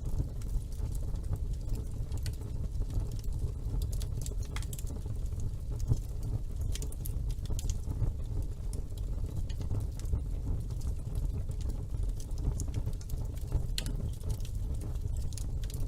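Wood fire burning in a fireplace: a steady low rumble of flame with scattered sharp crackles and pops throughout, one louder pop about six seconds in.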